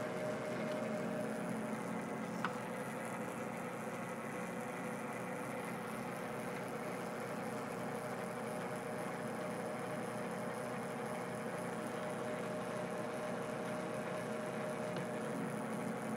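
Metal lathe running steadily through a thread-cutting pass, its motor and gear train giving a continuous whir with a steady hum. One short click about two and a half seconds in.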